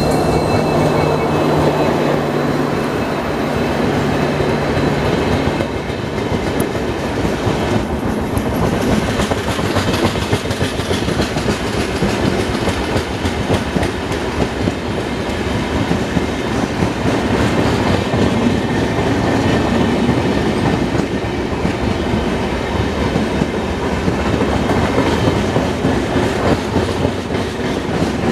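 Diesel-hauled Indian Railways express train passing close by, its coach wheels clattering steadily over the rail joints. A low steady hum is heard under the clatter for the first five seconds or so, then stops.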